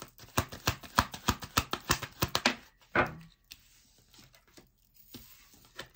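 Tarot deck being shuffled by hand: a quick run of card slaps, about five or six a second, for a couple of seconds, then a sharper slap and softer rustling and sliding of cards.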